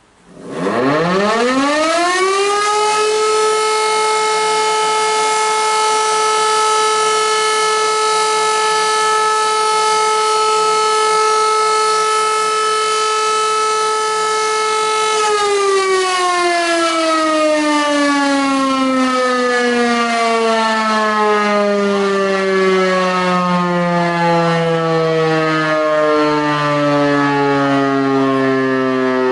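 E57 electromechanical civil-defence siren sounding. It winds up in about three seconds to a steady tone, holds it for about twelve seconds, then winds down slowly with the pitch falling, still sounding at the end.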